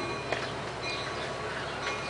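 COASTER bilevel commuter train running alongside: a steady hum with thin, steady high whining tones over it.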